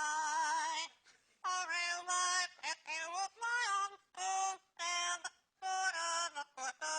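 A parrot singing a song in short phrases with brief breaks between them, the first note wavering.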